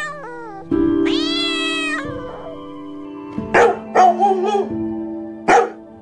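Domestic cat meowing: one long meow that rises and then falls about a second in, then a few short meows past the halfway mark and one more near the end, over soft background music.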